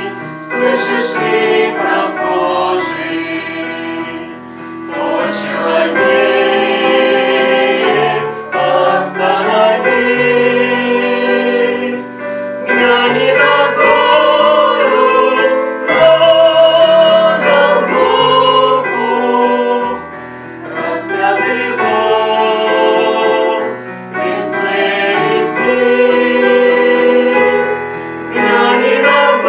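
A choir singing a Christian song in held, wavering notes over a sustained low accompaniment, dipping briefly between phrases.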